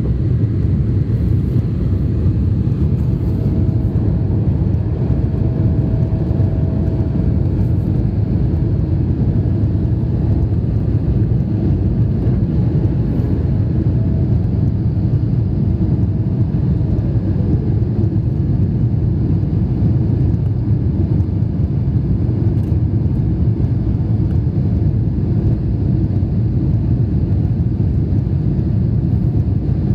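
Airliner cabin noise during the climb after takeoff: a steady low roar of the jet engines and rushing air. A faint thin tone sits above it and slides down in pitch and fades about 17 seconds in.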